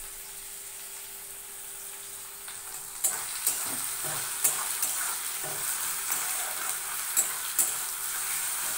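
Onions and tomatoes sizzling as they fry in oil in a kadai. From about three seconds in the sizzle grows louder, and a spatula stirs and scrapes against the pan with several sharp clinks.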